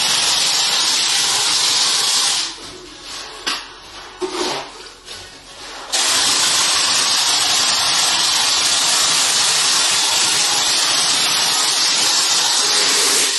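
Jet Sıva plaster spraying hopper gun blowing compressed air and plaster onto a wall in a loud, steady hiss. It stops about two and a half seconds in, gives a few short blasts, then sprays steadily again from about six seconds in.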